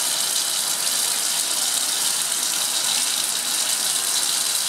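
Water aspirator running: tap water rushing steadily through it as it pulls vacuum on a filter funnel.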